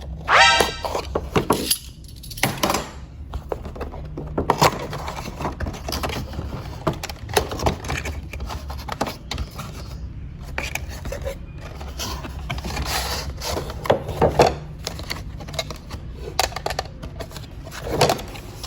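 Hard plastic toy being handled, with irregular clicks, knocks and light clattering, and a short electronic beep near the start.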